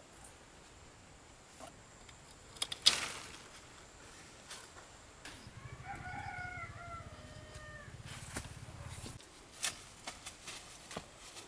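A rooster crowing once, a call of about two seconds that sinks slightly in pitch toward its end. A few sharp knocks come before and after it, the loudest about three seconds in.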